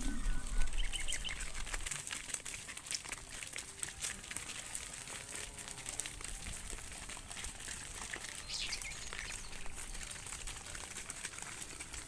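A cattle herd walking on a dirt road: scattered scuffs and clicks of hooves, with a few faint bird chirps and some wind rumble on the microphone in the first two seconds.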